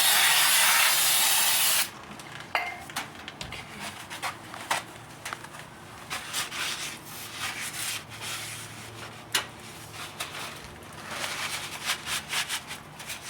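Aerosol brake cleaner sprays in one loud hiss for nearly two seconds at the start. Rubbing from wiping brake parts follows, with scattered light metal clicks.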